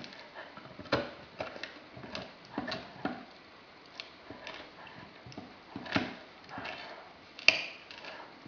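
Greater Swiss Mountain Dog chewing a large rawhide bone: irregular crunching and clicking of teeth gnawing the rawhide, the loudest crunch near the end.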